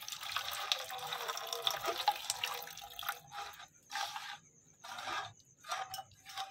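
Water poured from a steel cup into an aluminium pot of oil and ground spices, a continuous splash for about three seconds. After that come short separate sloshes as a hand mixes the liquid in the pot.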